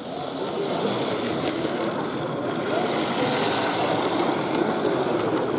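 H0-scale model train running along the layout track, a steady rolling rumble that swells and holds, with a few faint clicks, over a background of hall chatter.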